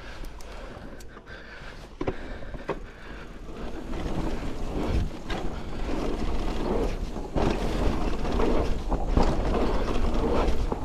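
Hardtail mountain bike riding over grass and dirt trail: tyre rumble, chain and frame rattle with a few sharp knocks from bumps, and wind on the microphone. The rush gets louder about four seconds in as the bike picks up speed.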